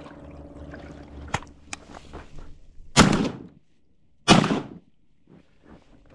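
Two shotgun shots about a second and a half apart, fired at flushing teal from a kayak, each sharp with a short fading tail. A few small knocks come before them.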